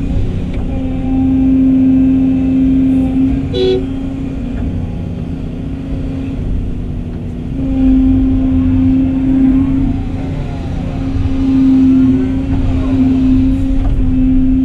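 Volvo excavator's diesel engine and hydraulics working, heard from inside the cab, the engine note swelling and easing with load as the bucket dumps into a truck and the machine swings back. A short high toot sounds about four seconds in, and faint gliding hydraulic whines come near the end.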